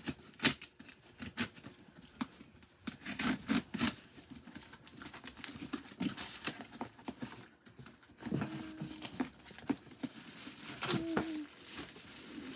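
A cardboard shipping box being opened and unpacked by hand: tape tearing, cardboard and packing material crinkling and rustling, with irregular knocks and taps.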